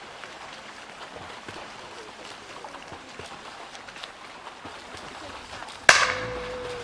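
A single loud crack of a starting pistol about six seconds in, giving the start signal for a triathlon mass swim start, with a short steady tone hanging after it. Before it, a low background of voices from the waiting crowd; after it, a rising hiss as the first splashing of the swimmers begins.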